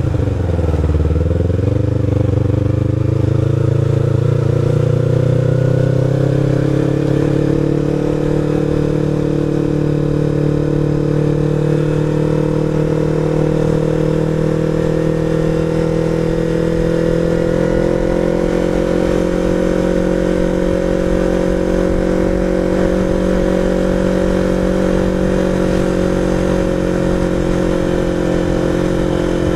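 Sport motorcycle's engine under way: the revs dip briefly at the start, climb steadily over the next several seconds, then settle into a steady cruise, with a slight rise again about halfway through.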